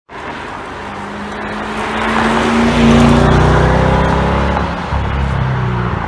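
Sports car engine accelerating, rising in pitch and loudest about three seconds in, then running on steadily.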